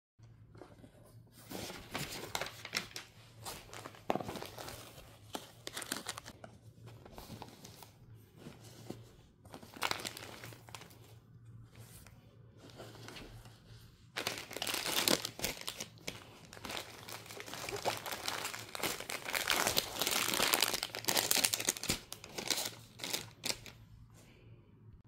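Irregular crinkling and rustling, like wrapping or packaging being handled and torn, loudest in the second half.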